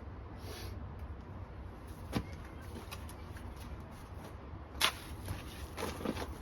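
A few sharp knocks over a low steady rumble: one about two seconds in, the loudest about five seconds in, then several softer ones near the end.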